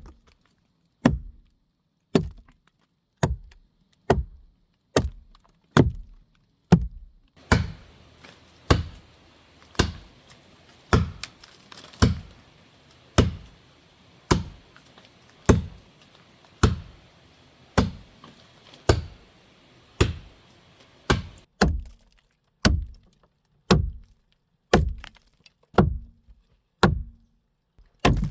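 Heavy tool blows on wood, struck in a steady rhythm of about one a second, each a sharp knock with a brief low ring after it, as in shelter-building work with an axe or mallet.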